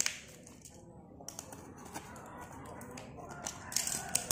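Snap-off craft knife working at the packing tape and plastic wrap of a parcel: scattered clicks and crackles of the tape and plastic, with a sharp click at the start and a busier burst of crackling near the end.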